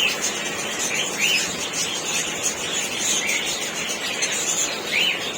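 Lovebirds chirping and chattering without a break. Short sharp chirps come about once a second over a dense high twittering.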